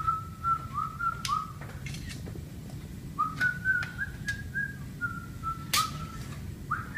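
A person whistling a tune in short notes, each starting with a small upward slide, in three phrases: one at the start, a higher one about three seconds in, and a lower one after it. Several sharp clicks come over it, the loudest near the end.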